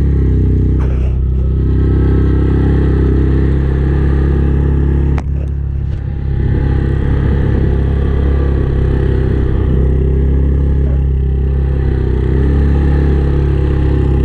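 ATV engine running steadily under way, with one sharp knock about five seconds in.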